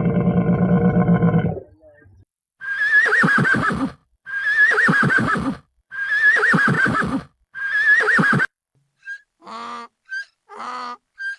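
Horse whinnying four times in near-identical calls, each a high, quavering neigh about a second long. The whinnies are preceded by a low, drawn-out animal call and followed near the end by shorter animal calls.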